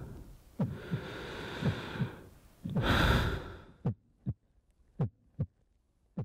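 Heartbeat sound effect: a double low thump about once a second. Two breaths swell over it, the second one louder, and after that the heartbeat carries on alone.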